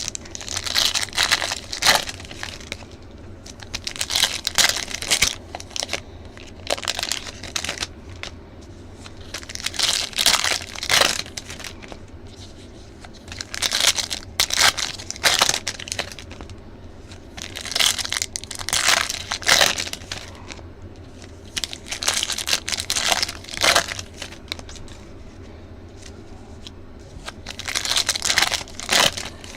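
Trading-card pack wrappers being torn open and crinkled by hand, in repeated bursts of crackling every few seconds.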